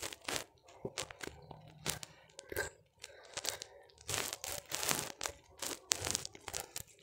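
Irregular crackling and rustling close to the microphone: a loose run of short clicks and scrapes.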